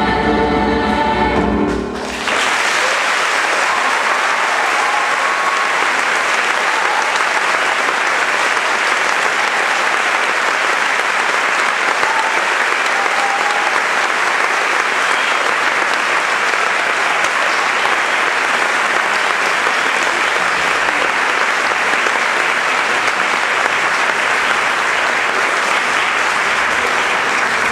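A children's choir sings a final held chord that cuts off about two seconds in, followed by an audience applauding steadily.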